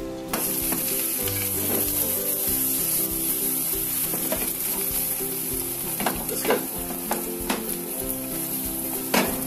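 Bread cubes and onions sizzling in oil in a nonstick frying pan, stirred with a plastic spatula that scrapes and knocks against the pan a few times in the second half.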